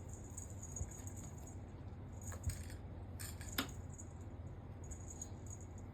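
Light, high jingling that comes and goes, with two sharp clicks about two and a half and three and a half seconds in, from kittens playing and chasing a cat laser pointer's dot.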